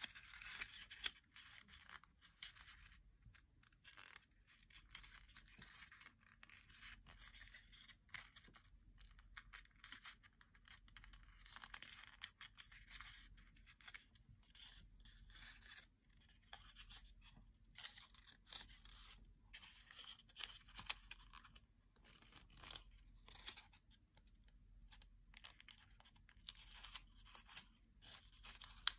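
A small square of origami paper being folded and creased by hand: quiet, irregular rustling and crinkling with small sharp clicks as the folds are pressed and shaped.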